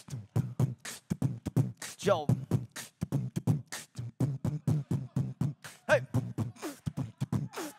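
Beatboxing: a fast, steady groove of kick-drum thumps and snare-like clicks, with sung pitch slides about two and six seconds in.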